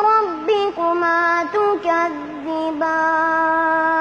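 A child's voice chanting Quran recitation in melodic tajweed style. Short phrases glide up and down in pitch, then the voice holds one long, steady note for the last second or so.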